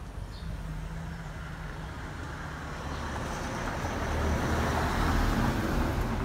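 A passing road vehicle: a rushing tyre and engine noise with a low rumble that builds, is loudest about four to five seconds in, then eases off.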